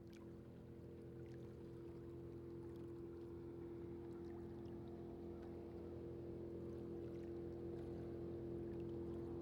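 A boat's engine hums at a steady pitch and grows gradually louder as the boat approaches, with faint water splashes over the hum.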